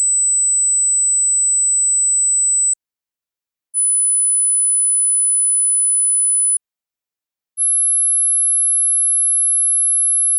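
Pure sine-wave hearing-test tones, very high-pitched, played in three steady tones of about three seconds each with a second's silence between them. Each tone is higher than the last, stepping upward to test high-frequency hearing loss that comes with age.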